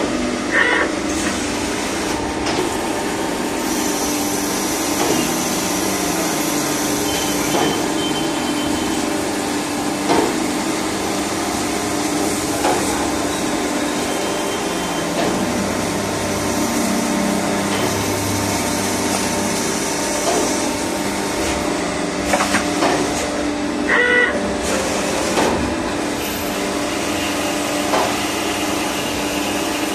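CNC turning lathe running and cutting a stainless steel workpiece under flood coolant: a steady machine hum with the hiss of coolant spray, and a few brief sharper sounds now and then.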